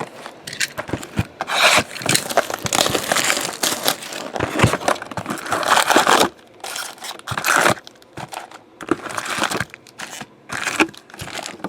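Cardboard trading-card boxes being handled and stacked on a table: crinkling and scraping with small knocks, steady for about six seconds and then in short bursts.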